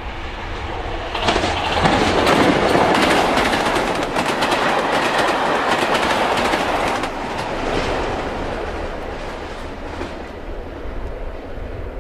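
Train passing close by, its wheels clattering over the rail joints. The noise starts suddenly about a second in, stays loud for several seconds with many sharp clicks, then fades away.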